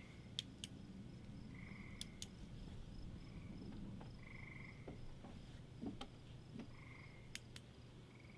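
Night chorus of frogs and insects: a frog repeats a short trilled call about every two and a half seconds over a faint, steady, pulsing insect chirp. A few pairs of sharp clicks stand out above it.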